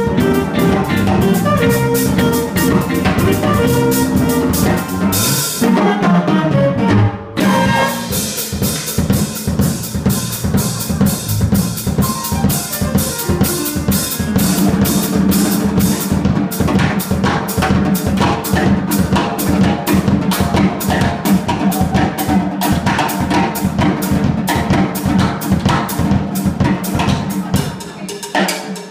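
Live jazz-funk band: trumpet and saxophone play over drum kit, electric keyboard, bass and guitar for about the first seven seconds. Then the horns drop out, leaving a drum kit groove with keyboard and bass underneath. The drumming grows busier near the end as it moves into a drum solo.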